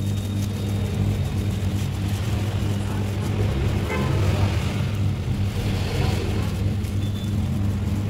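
Steady low mechanical hum with a constant noise bed behind it.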